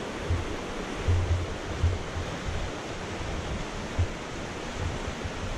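Fast-flowing mountain creek rushing steadily over rocks, with irregular low rumbles of wind buffeting the microphone.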